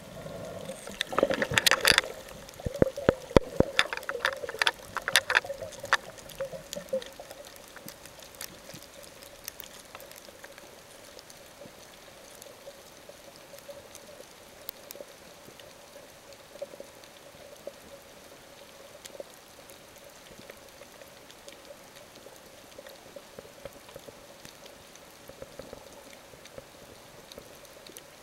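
Underwater water noise on a camera filming beneath the surface: a burst of bubbling, gurgling and sharp clicks over the first six seconds or so, then a faint steady hiss with scattered small crackles.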